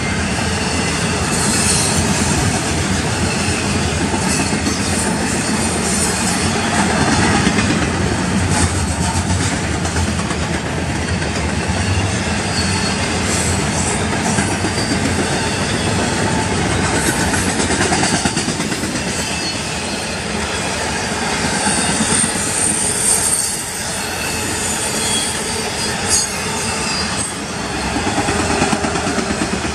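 Intermodal freight train's double-stack container cars and trailer flatcars rolling past: a steady wheel-on-rail rumble with scattered clicks as the trucks cross rail joints, and a brief high wheel squeal now and then.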